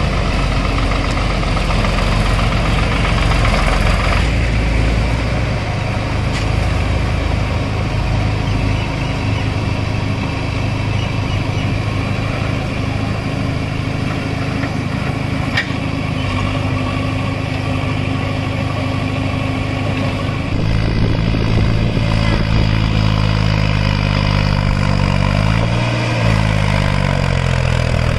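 Diesel engines running steadily: a JCB 3DX backhoe loader and a Mahindra Shaktimaan tractor's three-cylinder diesel. The engine note changes sharply about 20 seconds in, and near the end its pitch rises and falls as the tractor drives off.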